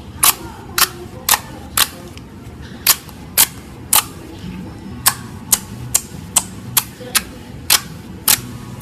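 Slime being squeezed and pressed, giving sharp, crisp pops as trapped air bursts, about two a second at uneven spacing.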